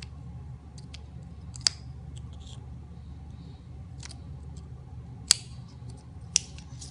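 Jigsaw puzzle pieces being handled and snapped into place: three sharp clicks, about 1.7, 5.3 and 6.4 seconds in, with lighter taps and rustles between, over a steady low room hum.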